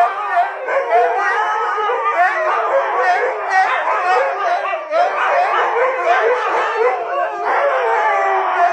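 A pack of huskies howling together, several voices overlapping and wavering in pitch.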